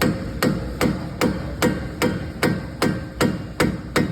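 Hammer striking steel in a steady rhythm, about eleven blows at two to three a second, each with a short metallic ring, pounding on a stuck front-suspension part to free it during CV axle removal.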